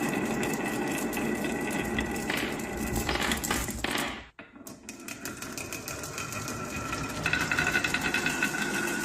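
Power tool running with a fast, rapid mechanical chatter, dropping out sharply about four seconds in and then starting again.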